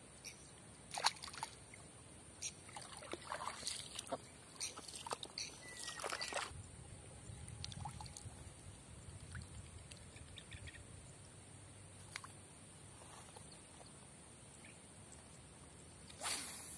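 Shallow water sloshing and splashing as hands work in it at the water's edge, a quick run of small splashes and knocks in the first six seconds, then quieter, with one short noisy rush near the end.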